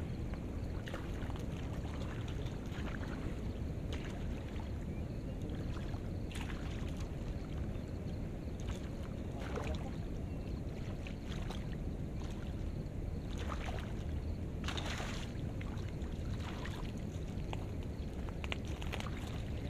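Irregular splashing in shallow water as a hooked fish is fought and pulled in to the shore, over a steady low rumble; the biggest splash comes about 15 seconds in.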